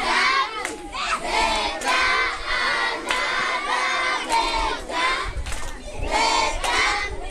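A class of children shouting together in repeated loud bursts, many voices at once.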